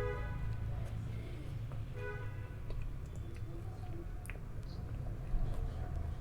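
Close-miked chewing with small wet mouth clicks, over a steady low hum. Two short pitched tones come at the start and again about two seconds in.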